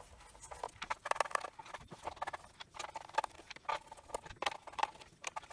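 Screwdriver undoing the screws in the plastic base of a Milwaukee M18 six-bay charger: a run of small, irregular clicks and taps, with the plastic housing being handled.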